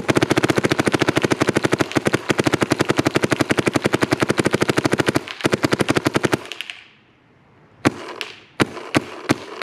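Bob Long Onslaught paintball marker with a Reflex engine firing in uncapped semi-auto: a rapid, even string of shots, well over ten a second, for about five seconds. After a brief break come a few more quick shots, then a handful of single shots near the end.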